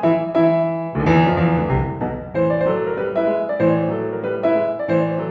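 Background piano music: single notes and chords struck one after another, each ringing and fading.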